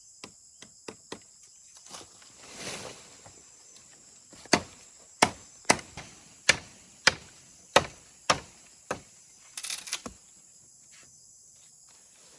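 Sharp chopping strokes, likely a blade striking wood: a few light taps early on, then a regular run of about eight hard blows roughly one every 0.6 s, starting about four and a half seconds in. A steady high insect drone runs underneath.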